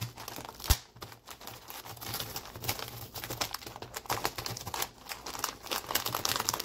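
Plastic snack bag crinkling and crackling as a sharp knife cuts through the bag film around the inside edge of a plastic baby-wipes lid. A single sharp click stands out under a second in.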